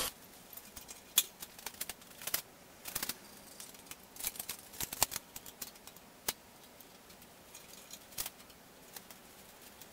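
Steel stock being handled at a horizontal cutoff bandsaw: scattered sharp clinks and knocks of metal pieces being moved and set in place, at irregular intervals, with the saw not running.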